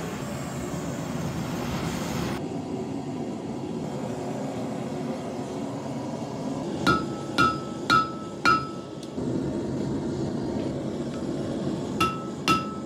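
Propane venturi forge burner running with a steady rush, then a blacksmith's hammer striking hot steel on an anvil four times about half a second apart, each blow ringing, with three more ringing blows near the end.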